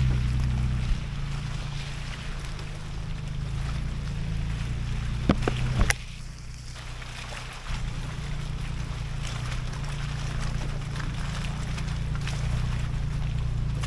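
Nissan Xterra's engine running steadily at low revs while it crawls along the trail, with a few sharp knocks about five to six seconds in, then a short drop in level before the engine sound resumes.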